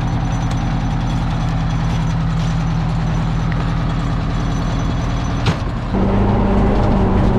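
Fire truck's engine running steadily. There is a sharp click about five and a half seconds in, then the engine speeds up and gets louder.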